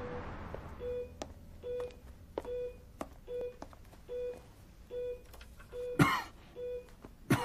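Bedside heart monitor beeping steadily, one short electronic beep about every 0.8 seconds, pacing the patient's heartbeat. Two louder short noises break in near the end.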